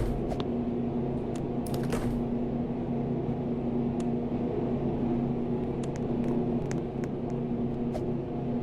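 Vinawind QT1400 ceiling fan running, giving a steady motor hum with a low tone. A few light clicks sound over it, the strongest near the start and about two seconds in.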